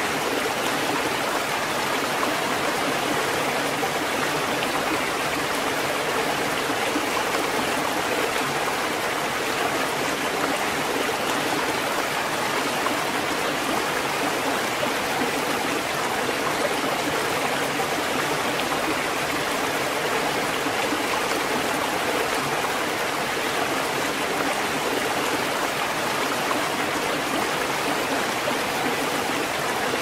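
Ocean surf washing over a rocky shore as a steady, even rush of water, with no distinct swells or separate wave crashes.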